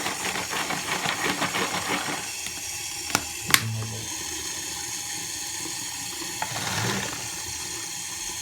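Tap water running and splashing into a container of screws as they are rinsed of vinegar, easing off after about two seconds, followed by two sharp clicks.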